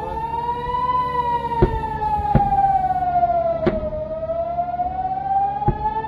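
Civil-defence rocket-warning siren wailing, its pitch rising slowly to a peak about a second in, sliding down over the next three seconds, then climbing again. The alert signals incoming rocket fire. Four sharp clicks or knocks cut across it.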